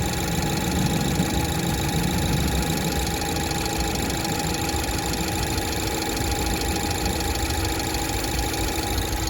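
BMW B48 2.0-litre turbocharged four-cylinder idling steadily after a cold start, with the extraneous noises the owner is trying to pin down.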